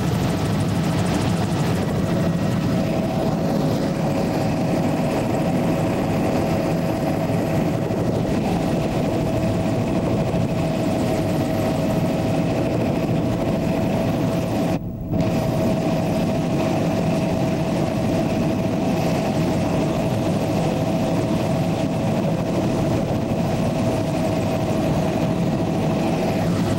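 Steady drone of a survey aircraft's engines heard from inside the cabin, with a constant low hum and a steady mid-pitched tone. The sound drops out for a split second about halfway through.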